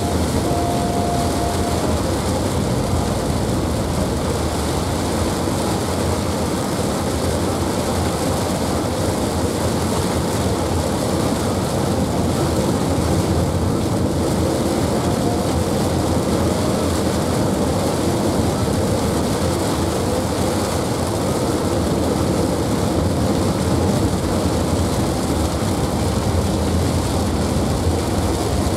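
Heavy rain hitting a moving car's roof and windshield, heard from inside the cabin, mixed with tyre noise from the wet road: a steady, unbroken noise.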